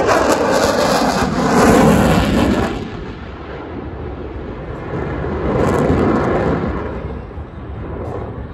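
Jet noise from an F-22 Raptor's twin Pratt & Whitney F119 turbofans as it flies overhead and pulls into a steep climb. It is loudest for the first three seconds, fades, then swells again about six seconds in.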